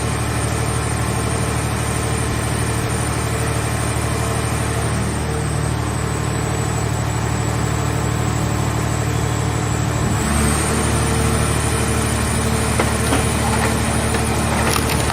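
A scrap car shell baler's engine-driven hydraulic power unit running with a steady machine hum and a high whine. Its tone shifts about ten seconds in.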